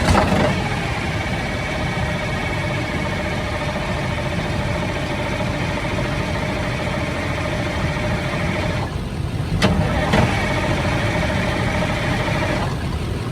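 1971 Insley excavator's diesel engine being cranked by its electric starter in two tries: a click as the starter engages, a steady whining crank of about eight seconds, a brief pause, then another click and about two and a half seconds more cranking that cuts off.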